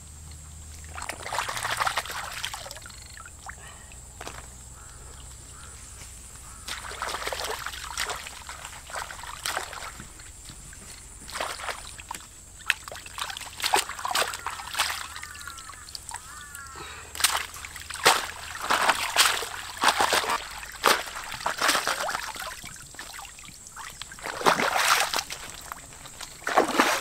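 Water splashing and sloshing in irregular bursts, with the loudest and most frequent splashes in the second half.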